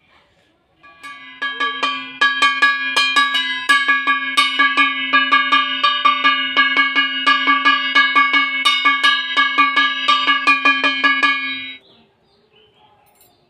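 Brass puja hand bell rung rapidly and steadily during an aarti, about five strokes a second, its ringing tones sustained between strokes. It starts about a second in and stops abruptly near the end.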